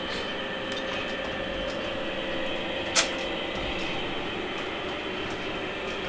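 Lionel O-gauge model train with hot metal cars running along the track: a steady mechanical hum, with one sharp click about three seconds in.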